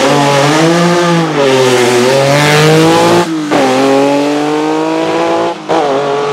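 Lancia Stratos HF Group 4's mid-mounted Ferrari Dino V6 accelerating hard away from the start, revving up through the gears, with upshifts about three and a half and five and a half seconds in.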